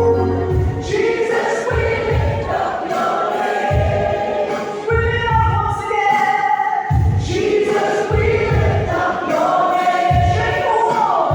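Background music: a choir singing a gospel-style song over a low beat that comes about once a second.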